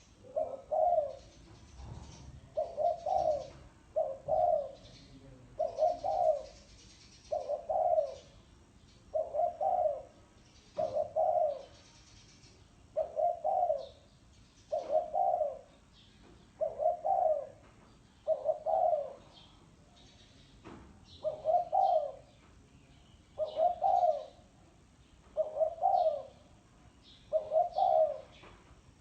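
Spotted dove cooing over and over: a short phrase of low coo notes about every one and a half to two seconds, with faint high chirps of small birds between the phrases.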